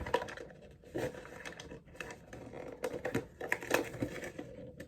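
A toy's cardboard box packaging being handled and opened: scattered light clicks, taps and rustles at an irregular pace.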